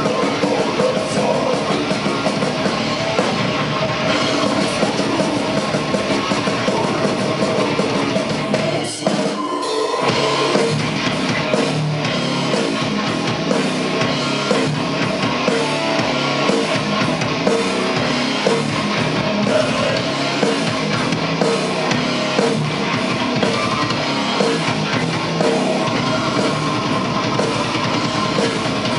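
Rock band playing live, with electric guitars and a drum kit; the drums and bass drop out briefly about nine seconds in before the full band comes back.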